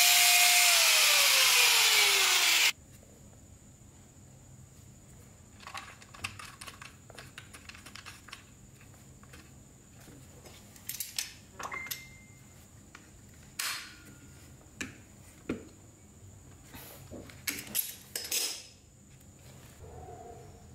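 Angle grinder on the chainsaw's housing at the head-bolt hole, its whine dropping in pitch as the disc winds down, then cutting off suddenly about three seconds in. After that, scattered light clicks and scrapes of metal parts being handled.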